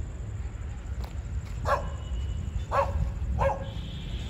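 A dog barking: three short, sharp barks, the last two close together, over a steady low rumble.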